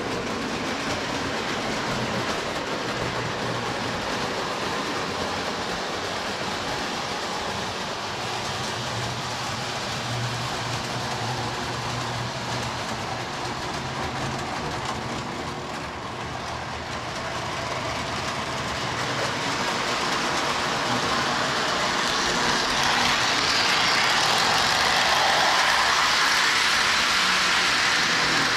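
Lionel toy train running on its track: a steady rolling rumble of wheels on the rails with a faint low hum, growing louder about two-thirds of the way through.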